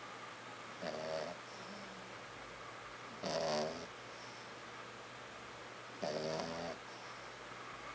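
A sleeping dog snoring: three pitched snores about every two and a half to three seconds, the middle one the loudest, with softer breaths between.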